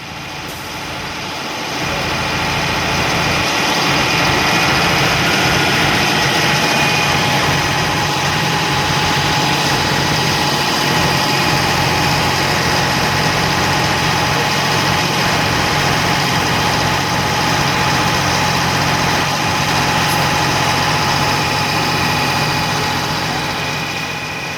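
A vehicle engine running steadily at a constant speed under a broad rushing noise. It fades in over the first couple of seconds and fades out near the end.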